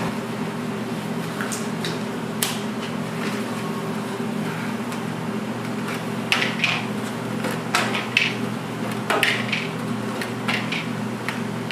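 Light clinks and knocks of kitchen utensils and trays over a steady machine hum, the clatter coming more often in the second half.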